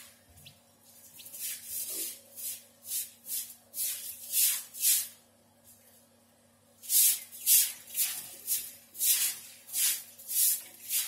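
Rhythmic scratchy hissing strokes, about two a second, in two runs with a pause of a second or so around the middle, like something being scraped or brushed.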